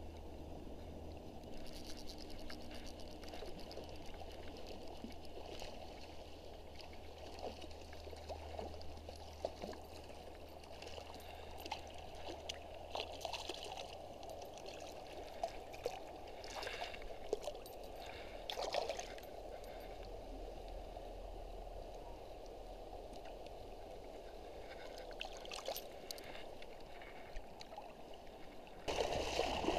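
Stream water trickling and gurgling, with a few brief splashes about halfway through as a hooked trout thrashes at the surface. The rush of water grows louder near the end.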